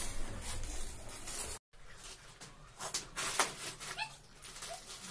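Potato chips being crunched and their foil packets crinkling, in irregular sharp crackles, with a brief dropout about a second and a half in. Near four seconds there is a short rising squeak.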